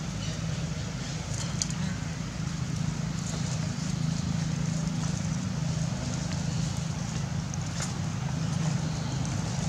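A steady low mechanical hum, like an engine running, with faint scattered ticks over it.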